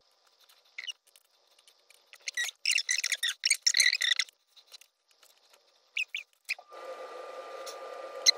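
Scratchy rustling of long hair being handled, sectioned and twisted up by hand, with a few light clicks. Near the end a steady hum starts up and holds.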